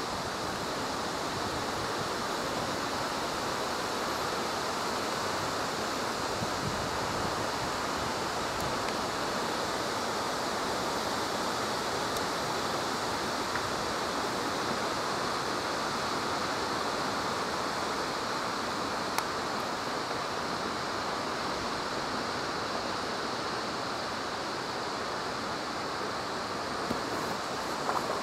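Wind blowing through the leafy crowns of trees: a steady rustling rush of leaves, with no marked gusts.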